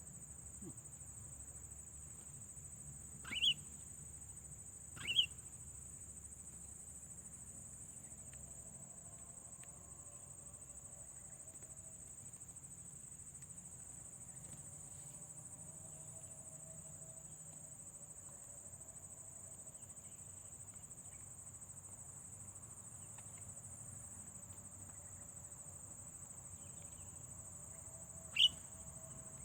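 Steady high-pitched chirring of crickets or other insects, with three short sharp bird calls: two a few seconds in and one near the end.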